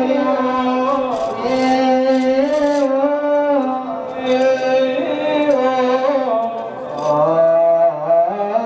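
Ethiopian Orthodox liturgical chant of a funeral prayer service: a voice singing long held notes that step slowly up and down, with a second, lower voice joining near the end.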